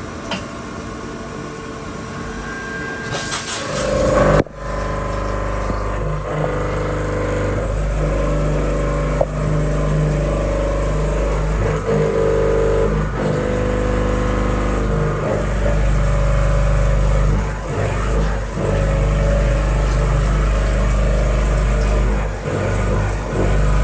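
CNC milling machine cutting a steel block: a steady low hum with held machine tones that shift now and then as the cut goes on. The hum starts abruptly about four seconds in.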